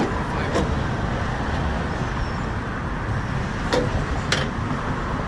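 Steady rumble of road traffic, with a few short sharp knocks or clicks.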